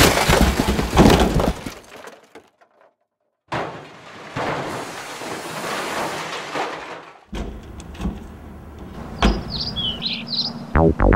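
Clattering and scraping of a large plastic trash bin as a man climbs into it, broken by a short silence. Near the end, a few short bird chirps.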